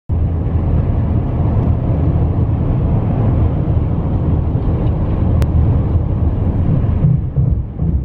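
Steady road and engine noise inside a car's cabin while driving on a freeway, a low rumble without breaks.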